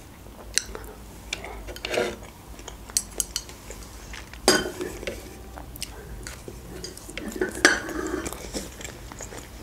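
Close-miked eating: kiwi being chewed, with scattered sharp clicks and a few louder clinks of tableware, the loudest about halfway through and again near the end.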